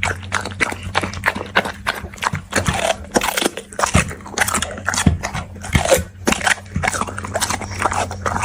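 A dog eating, its jaws crunching and chewing food in a quick, irregular run of crunches, over a steady low hum.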